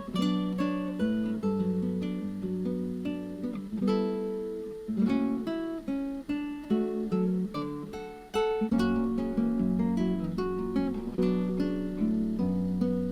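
Acoustic guitar music: plucked and strummed notes in a steady flowing rhythm.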